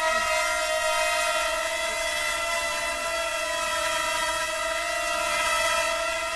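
ZEROTECH Dobby pocket quadcopter's propellers whining steadily as it hovers: a noisy, even, high-pitched buzz with a hiss over it.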